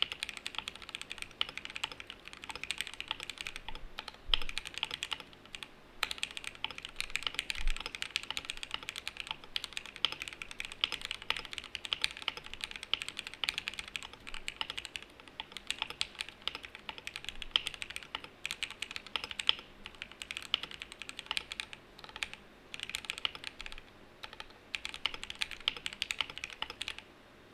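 Continuous typing on a QK65 mechanical keyboard with Gateron Oil King linear switches, an aluminium plate and DCS ABS keycaps, built with no foam dampening. Keystrokes come in quick runs with brief pauses, with a few louder strikes among them.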